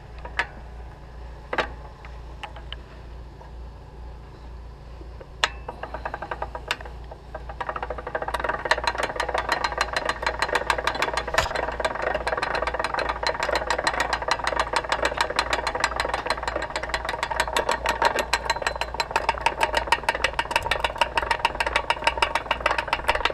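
A few metal clanks, then about eight seconds in a tractor engine starts and keeps running with a rapid, even firing beat.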